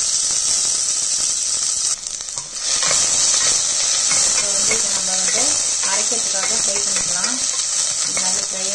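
Sliced onions sizzling in hot oil in a stainless-steel pressure cooker, stirred with a wooden spatula. The sizzle drops briefly about two seconds in, then runs on steadily.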